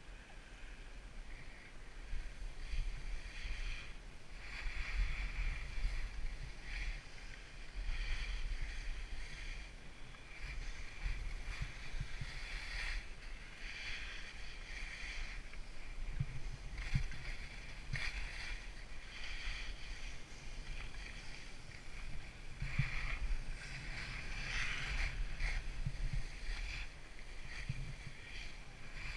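Skis scraping and swishing over packed, groomed snow, the hiss swelling and fading with each turn, over a low rumble of wind on the microphone.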